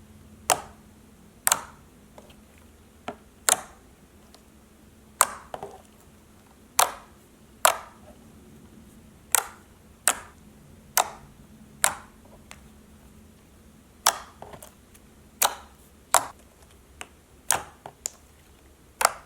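Thick glossy slime being stretched, folded and pressed by hand, giving sharp clicking pops from trapped air, about one a second at uneven intervals.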